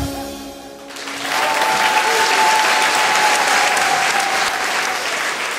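The last chord of a song rings out and fades, then a studio audience breaks into sustained clapping, with one long held tone over the applause.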